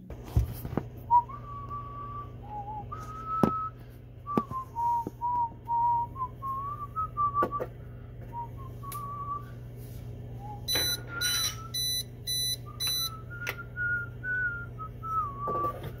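A man whistling a wandering tune to himself in short notes, with occasional sharp clicks and knocks of hands handling parts inside a refrigerator, over a steady low hum. About eleven seconds in, five short high-pitched electronic beeps sound in quick succession.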